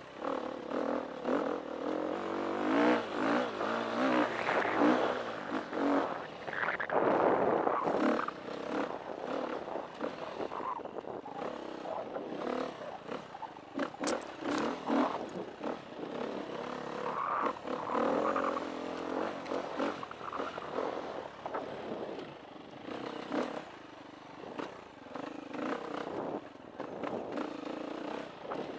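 KTM 350 EXC four-stroke single-cylinder dirt bike engine revving up and down under changing throttle while being ridden, with occasional knocks and clatter from the bike over rough ground.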